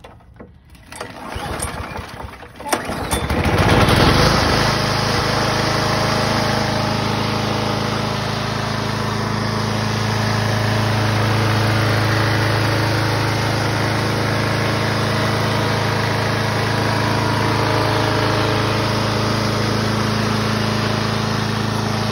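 Briggs & Stratton 6 HP Quantum engine on a Craftsman push mower pull-started, catching about three to four seconds in, then running steadily.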